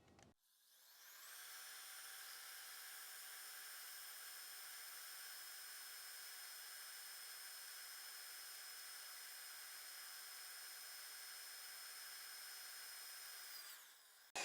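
Cordless drill running at speed, drilling a hole: a steady high-pitched whine that spins up about a second in and winds down near the end.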